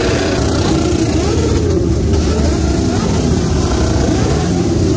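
Motorcycle engines revving hard, their pitch climbing and falling again and again, with more than one engine going at once.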